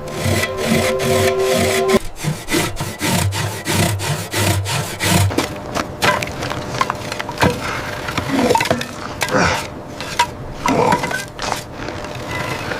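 Saw cutting through ice in quick, irregular sawing and scraping strokes. A low steady hum and tones sit under the first two seconds.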